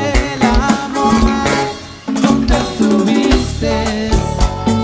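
Live tropical band playing, with drum kit, bass and guitar. The band drops out briefly about two seconds in, then comes back in together.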